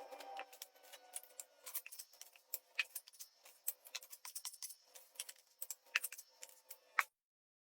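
Faint, irregular light clicks and short scrapes from hand tools during drywall patching, cutting off abruptly about seven seconds in.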